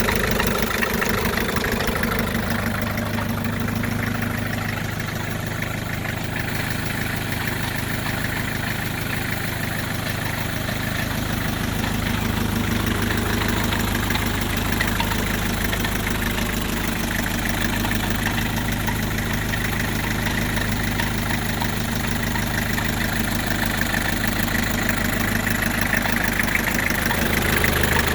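1984 Isuzu P'up's four-cylinder diesel engine idling steadily with its rhythmic diesel clatter, including the unexplained noise that the owner is trying to identify.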